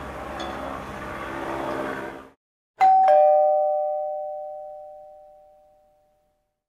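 A steady engine drone from the airship overhead cuts off suddenly about two seconds in. After a short gap, a two-note ding-dong chime sounds, high then lower, and rings away over about three seconds.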